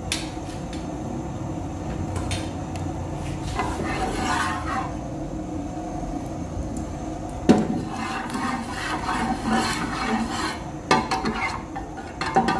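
Metal spatula scraping and clinking against a frying pan while stirring bubbling, sizzling oil, with scattered knocks. The sharpest knock comes a little past halfway.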